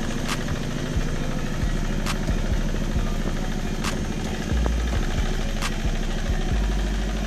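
Walk-behind two-wheel hand tractor's engine running steadily as it works a flooded rice paddy, with a faint sharp click recurring about every second and a half.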